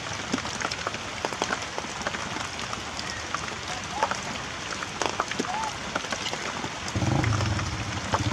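Heavy rain falling on surfaces, with many individual drops striking. Near the end a low steady motor hum, like an engine running, comes in.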